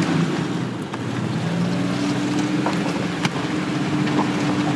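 Car engine drone and road noise heard from inside a moving vehicle, with a steady engine note that shifts slightly in pitch about a second and a half in, and a few light clicks.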